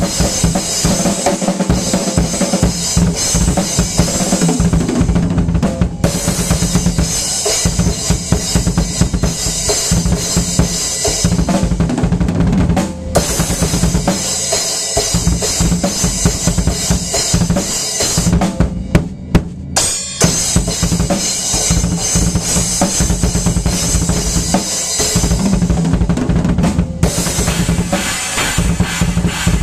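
Acoustic drum kit played continuously, with bass drum and snare, and short breaks about a third and two thirds of the way through.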